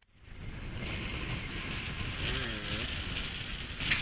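Wind rushing over the camera microphone while a dirt bike engine revs, its pitch dipping and rising about two and a half seconds in. A sudden loud bang comes near the end.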